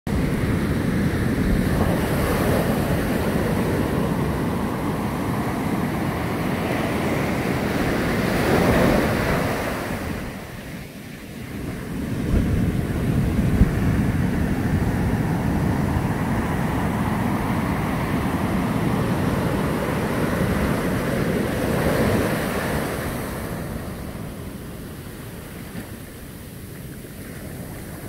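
Heavy surf breaking and washing up a sandy beach: a continuous rush of white noise that swells as waves break, loudest about a third of the way in and again past three-quarters, with brief lulls between. Wind rumbles on the microphone underneath.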